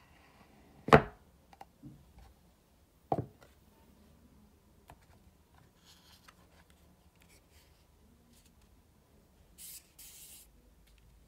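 Cardboard AirPods Pro packaging handled on a wooden table: two sharp knocks, about a second in and about three seconds in, with small taps and clicks between them. Near the end come two short papery sliding rubs as fingers work the paper documentation envelope.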